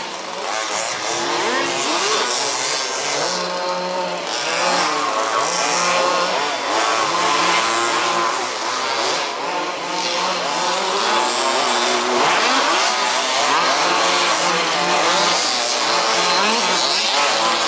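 Several 1/5th-scale two-stroke petrol RC buggies racing together, their small engines revving up and down over one another.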